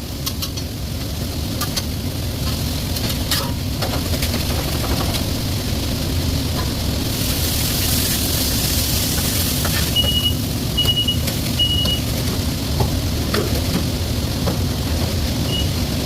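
Commercial kitchen background: a steady low rumble, with a few seconds of loud hiss from about seven seconds in. Three short high electronic beeps come around ten to twelve seconds, and one more near the end.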